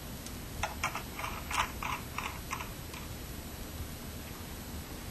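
A quick run of about seven clicks and taps over roughly two seconds, made by hands working a disc scratch repair machine as it is set up for another repair pass.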